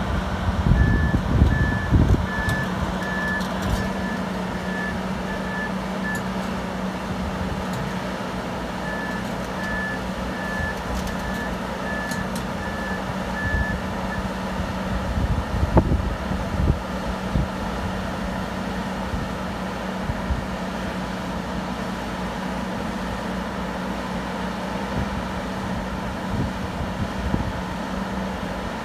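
Crawler rock drill rig's engine running steadily as the rig tracks forward onto a lowbed trailer, its travel alarm beeping about one and a half times a second in two runs during the first half. A few knocks come from the tracks on the deck, loudest near the start and about halfway through.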